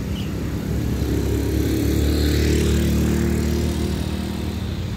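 A motor vehicle's engine passing, growing louder to a peak about halfway through and then fading.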